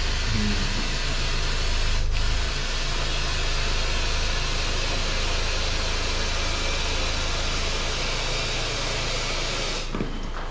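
Compressed air hissing steadily from an air line into a tractor inner tube, with a low hum underneath, inflating it to find the puncture. The hiss breaks off briefly about two seconds in and cuts off suddenly near the end.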